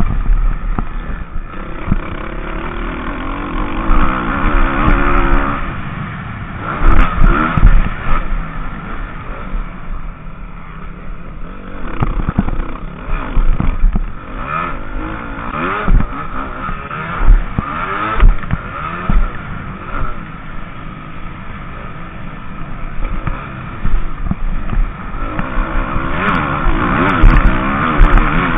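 Motocross bike engine heard from the rider's onboard camera, revving up and falling back again and again as the rider accelerates, shifts and backs off around the track. Heavy low thumps keep breaking through over the bumps.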